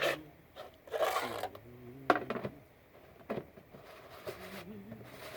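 Scattered sharp knocks and clicks, with a short scraping rub about a second in: objects being handled. A faint voice sounds in the background.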